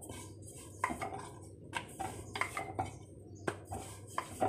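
Wooden rolling pin rolling dough on a wooden board, giving irregular light knocks and clicks as the pin strikes the board. A low steady hum runs under it.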